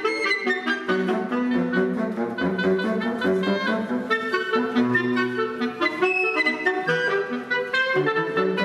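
A woodwind ensemble of flute, clarinets and saxophones plays a piece in several parts that moves through many quick notes.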